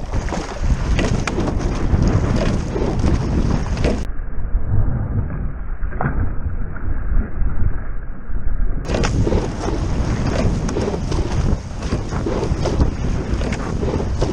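Wind buffeting the microphone of a boat-mounted camera on a rowing scull under way, with water rushing and splashing along the hull as the oars work. For about five seconds in the middle the sound goes dull, its top end cut off.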